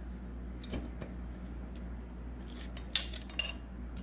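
Light metallic ticks and clinks of a Honda K24's worn main bearing shell and cap being handled and pulled from the engine block, the two sharpest clinks about three seconds in.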